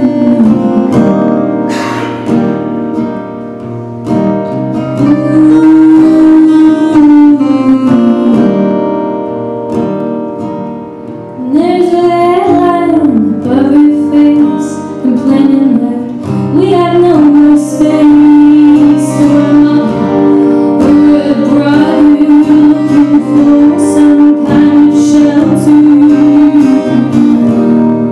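A live song by a duo playing two guitars, with a sung melody that holds long notes. The playing thins out about a third of the way in and comes back in full a little later. A long note is held near the end.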